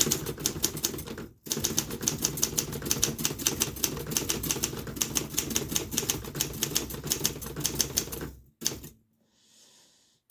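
1968 Olympia SG 3 manual standard typewriter being typed on quickly: a fast run of key clacks that pauses briefly about a second and a half in, then goes on until it stops about eight and a half seconds in.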